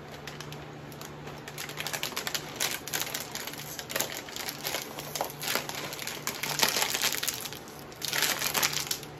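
A crinkly plastic snack bag crackling as both hands squeeze, twist and pull at it in a failed attempt to tear it open, loudest near the end when it is pulled hardest.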